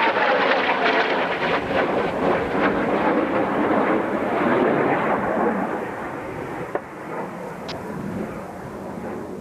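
Jet noise of Blue Impulse Kawasaki T-4 trainers passing, a loud crackling rush that fades away from about five seconds in.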